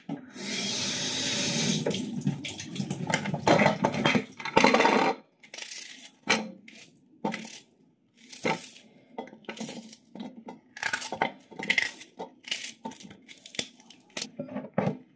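Kitchen tap running for about five seconds. Then a small knife cuts an onion held in the hand: a series of short cuts and taps as pieces fall into a glass bowl.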